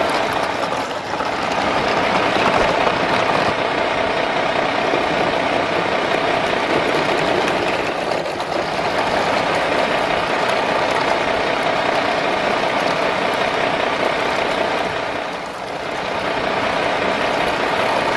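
Steady engine-like running noise with a constant hum, dipping briefly three times at even spacing.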